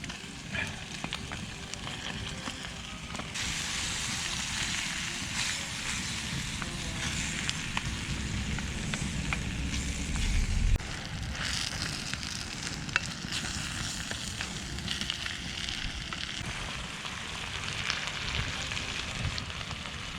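Pork and kimchi stir-frying in a pan over a campfire, sizzling steadily and growing louder about three seconds in, with scattered small crackles and clicks.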